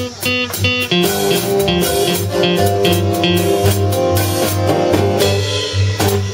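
Blues-style band music: guitar playing over a steady bass and drum beat.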